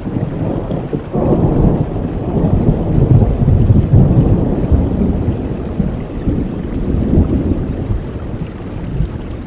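Thunder rolling over steady rain: a long, deep rumble that swells about a second in, peaks a few seconds later and slowly dies away.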